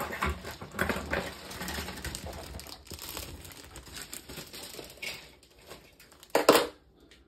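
Plastic kit bag crinkling and rustling as a clear plastic sprue is pulled out of it, busiest in the first few seconds and fading, with one short louder rustle about six and a half seconds in.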